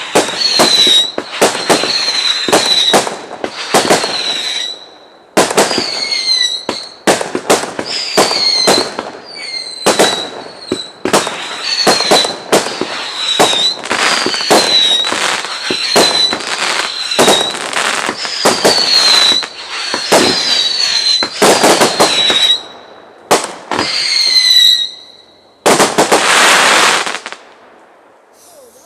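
Fireworks firing a rapid run of shots, each with a short shrill whistle that drops in pitch. Near the end there is one longer hissing rush, after which the shooting stops.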